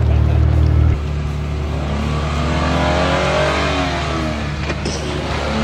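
Jeep Wrangler JL engine revving, its pitch climbing and then falling back over a few seconds. A louder, deeper low drone cuts off suddenly about a second in.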